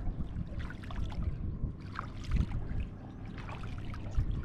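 Wooden paddle dipping and pulling through shallow sea water, with small splashes and dripping every second or so over a low rumble.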